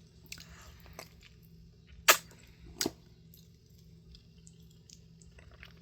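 Two short sharp snaps, about two seconds in and again under a second later: biting into a frozen gummy-style ice cream bar. A faint steady hum lies underneath.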